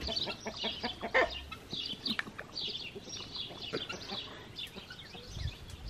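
Rooster screaming in agitation: a rapid run of short, high, harsh squawks.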